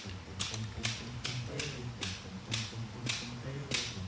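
A regular series of short, sharp clicks, about two a second, over a steady low hum.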